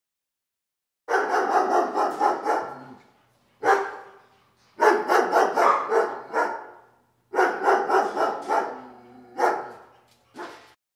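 A dog barking in quick runs of several barks, about six runs with short gaps, each run trailing off.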